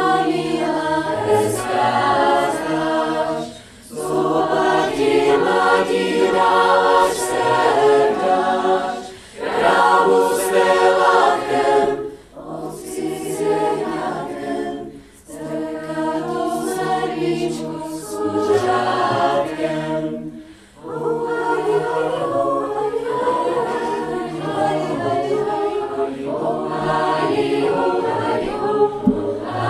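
Mixed choir of female and male voices singing in chords, in held phrases broken by short pauses for breath.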